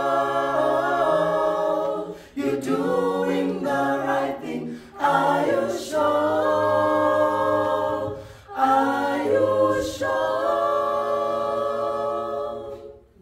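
Mixed group of women and men singing a cappella in close harmony, held chords over a low bass line in phrases with short breaks; the final chord fades out near the end.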